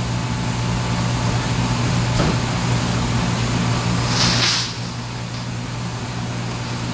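Steady low machine hum, like a shop fan or air-conditioning unit running, with a brief hiss about four seconds in.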